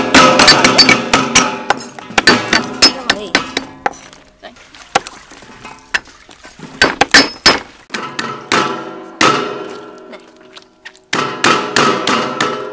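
Cleavers chopping lemongrass stalks on a thick wooden chopping block, in quick runs of sharp chops with short pauses between them.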